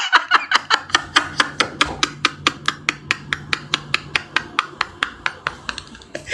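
A man laughing hard and breathlessly, in rapid short pulses about six a second that fade away.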